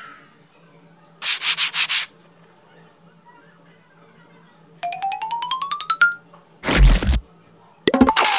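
Cartoon sound effects: a quick rattling burst, then a rising whistle over rapid ticks, then a low thump, with a falling whistle beginning near the end.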